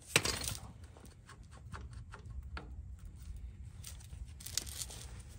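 Small metal parts clinking and clicking as the parking-brake shoes and rear axle hub are handled: a sharp metallic rattle just as it begins, a few light clicks, then a cluster of clinks about four seconds in.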